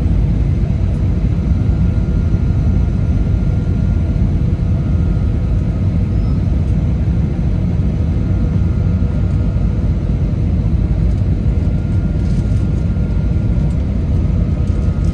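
Steady cabin rumble inside an Airbus A320 airliner: engine and airflow noise, with a faint thin whine above it that fades and returns.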